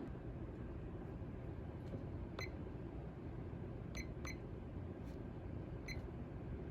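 Hampton Bay Waterton ceiling fan running with a steady low hum, which the owner thinks may come from one blade missing a screw. A few short, high ticks sound over it, two close together near the middle.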